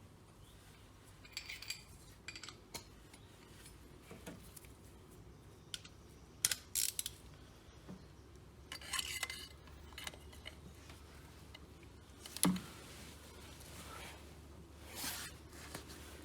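Scattered metallic clinks and clicks as a socket wrench, extension bar and thin-wall 14 mm spark plug socket are handled and fitted together. The loudest is a sharp knock about twelve seconds in.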